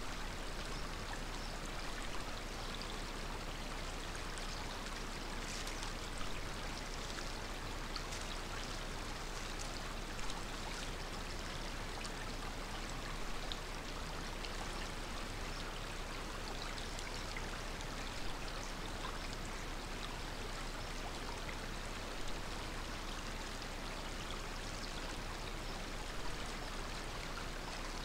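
Shallow river running over stones, a steady rushing of water, with a faint short tick every few seconds.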